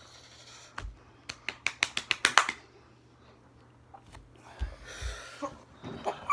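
Handling noise from a smartphone being picked up and held out: a quick run of about ten sharp clicks that come faster over a second or so, then a few softer taps and rustles.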